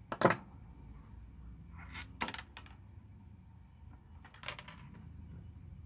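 Small hand tools handled on a hard stone countertop: one sharp click about a quarter second in, then two clusters of lighter clicks and taps, about two seconds and four and a half seconds in.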